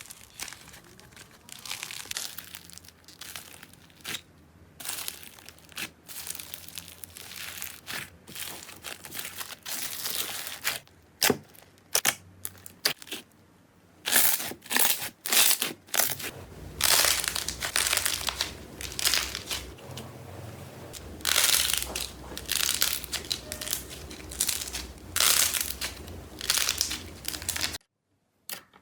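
Slime being squeezed and pressed by hand, making crackling, crinkling squelches in irregular bursts that grow louder about halfway through. It stops abruptly near the end.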